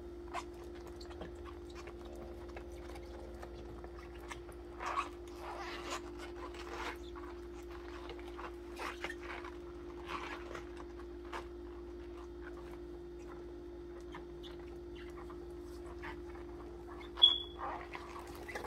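Soft, irregular splashing and scrubbing as rubber-gloved hands brush a tubular instrument in a basin of soapy detergent water, over a steady low hum. A single short, high squeak near the end is the loudest sound.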